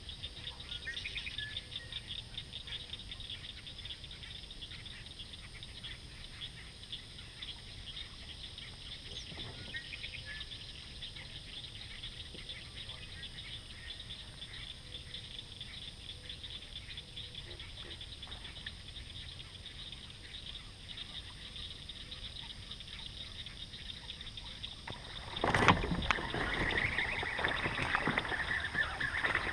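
A steady high chorus of fast ticking calls, then about 25 seconds in a sudden loud splash as a largemouth bass strikes a topwater popping frog at the kayak, followed by continued heavy splashing as the hooked fish thrashes at the surface.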